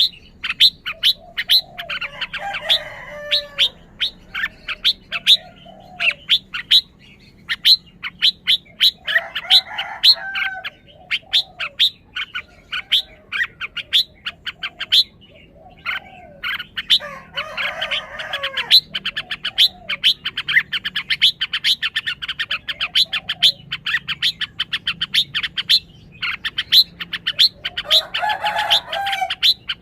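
Red-whiskered bulbul singing short warbled phrases every several seconds over a running stream of rapid, sharp chirps at several a second.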